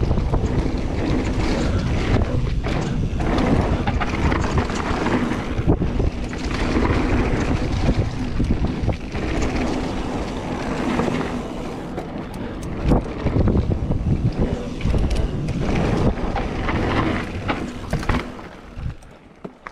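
Wind buffeting the microphone over the rumble and rattle of a mountain bike riding fast down a dirt trail, with sharp knocks and clatters as it goes over bumps. The noise dies down near the end.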